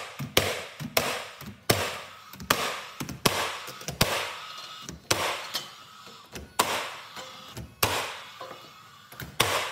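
Paslode cordless gas-powered finish nailer firing nails into wood window trim: about a dozen sharp shots, roughly one a second, each followed by a short fading hiss.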